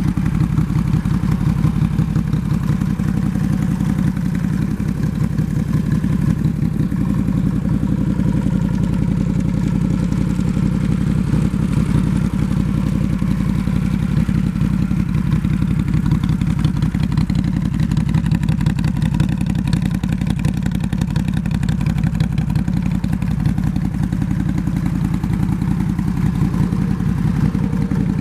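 2008 Harley-Davidson Road King's Twin Cam 96 V-twin idling steadily through a SuperTrapp aftermarket exhaust.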